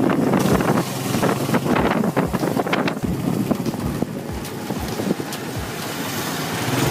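A motorcycle tricycle (motorcycle with a sidecar) riding along a street, heard from inside the sidecar: engine and road noise with wind buffeting the microphone.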